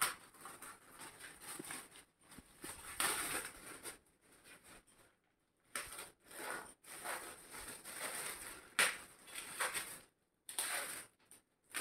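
Paper rustling and tearing in irregular bursts as newspaper gift wrapping is peeled and pulled off a present, with a couple of short pauses.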